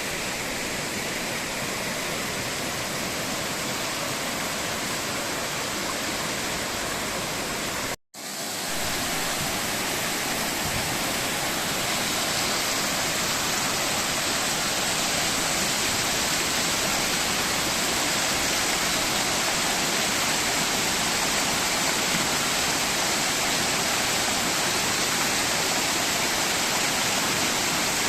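Rushing water running steadily. The sound cuts out for a moment about eight seconds in, then comes back a little louder.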